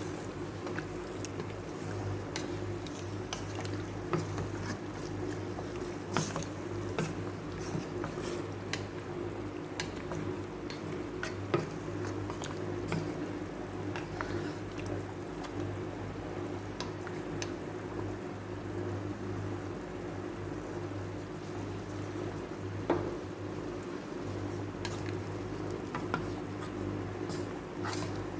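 Chicken stew in a milk sauce simmering and bubbling in a stainless steel pan, with scattered small clicks and a few sharper taps from the stirring spoon against the pan, over a steady low hum. The sauce is being brought to a boil so that it thickens.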